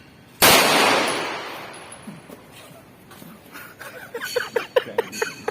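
A single shot from an STI 9mm pistol about half a second in: a sharp crack with a long echoing tail that fades over a second or so.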